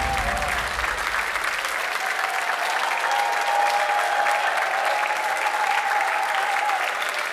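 Studio audience applauding and cheering, while the music dies away in the first two seconds.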